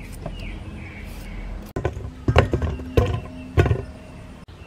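A hand peeler scraping a cucumber, then peeled cucumbers dropped into a stainless steel pot: several sharp knocks over about two seconds, each with a short metallic ring.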